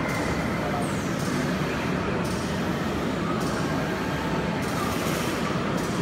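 Steady background din of a busy hall: indistinct voices over an even hum of machinery and ventilation.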